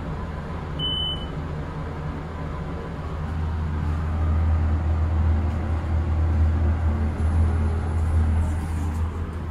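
Steady low hum in an elevator cab, which the uploader blames on an obnoxious cab fan. It gets louder in the second half as the car arrives and the doors open. A short high beep sounds about a second in.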